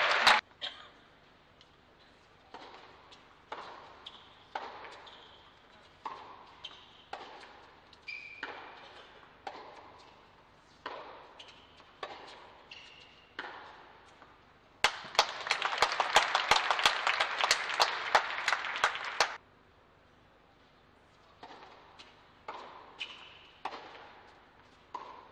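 Tennis ball knocks on an indoor hard court, racket strikes and bounces about once a second, with brief shoe squeaks. Midway comes about four seconds of loud applause after the point, then more ball strikes.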